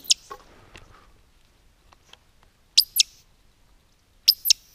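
Roding Eurasian woodcock giving its sharp, high squeaking call overhead: one double squeak about three seconds in and another near the end.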